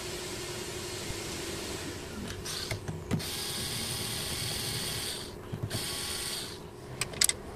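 Cordless electric screwdriver with a torx bit running in two spells to back out the door mirror's mounting screws. It whines for about two seconds, pauses briefly, then runs again for a moment. A few sharp clicks come near the end.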